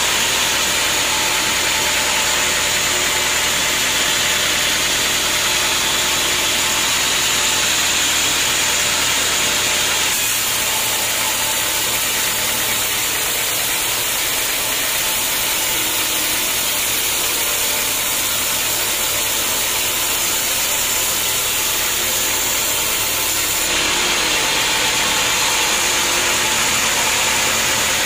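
Horizontal band sawmill running, its blade cutting lengthwise through a teak log: a steady mechanical hum under a dense, hissing sawing noise. The sound shifts abruptly about ten seconds in and again near the end.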